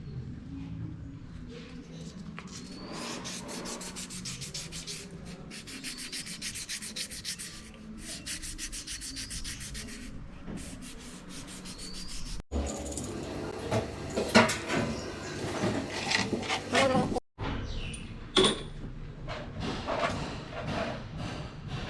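Rapid, even rubbing or scraping strokes on a hard surface, like hand sanding or scraping during engine work. After a break, irregular knocks and clatter follow.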